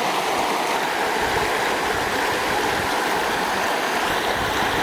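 A creek rushing steadily: an even wash of flowing water.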